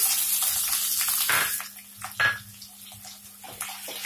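Chopped onions sizzling loudly as they hit hot mustard oil in a frying pan. About a second and a half in the sizzle drops to a quieter hiss, with the odd knock of a wooden spatula stirring them.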